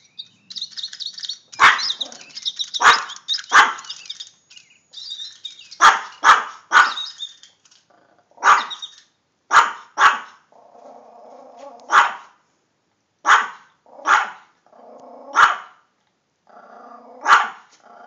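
A small dog barking at birds: about fourteen sharp single barks, spaced a second or two apart, with softer, longer sounds between the later barks. Small birds twitter rapidly in the first few seconds.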